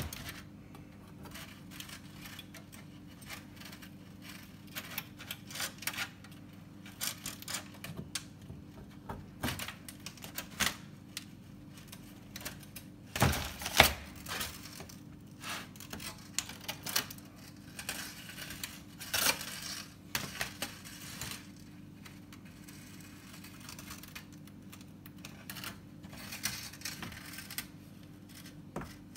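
Kitchen handling sounds while cooked beef ribs are cut on aluminium foil: irregular clicks, taps and crinkles of the knife and cleaver against the foil and meat, with a louder pair of knocks about halfway through. A low steady hum runs underneath.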